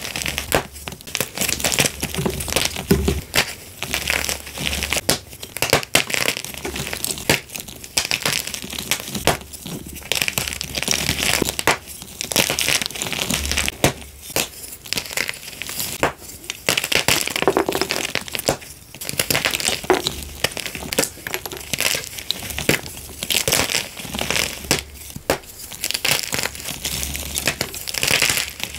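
Blocks of gym chalk snapped and crushed by hand: a quick run of sharp snaps mixed with dry, crumbly crunching, going on without a break.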